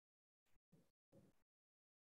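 Near silence, broken by three faint, brief sounds between about half a second and a second and a half in.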